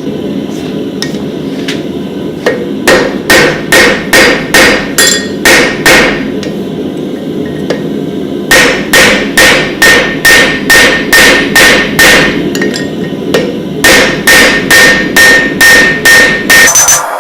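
Hammer blows on hot steel over an anvil while forging tongs: three runs of steady strikes, about three a second, with the anvil ringing faintly between blows. A steady rushing noise runs underneath.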